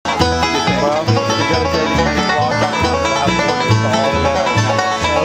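Bluegrass band playing: an upright bass plucks a steady beat under fast picking from a mandolin and an acoustic guitar.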